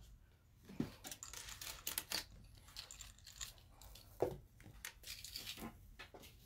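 Faint rustling and crinkling of a sheet of paper being handled, with scattered small clicks and taps as jewelry is moved about.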